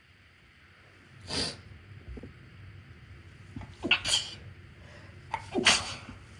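Induced sneezes: a short breathy burst about a second in, then two sharp, loud sneezes about a second and a half apart.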